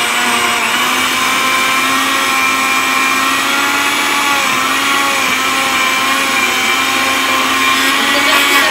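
Countertop blender motor running at speed, crushing frozen banana chunks in milk; a steady hum whose pitch wavers slightly.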